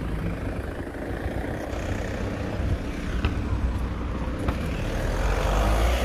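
Electric scooter riding over paving stones: a steady low rumble of wheels and wind on the microphone, growing louder near the end.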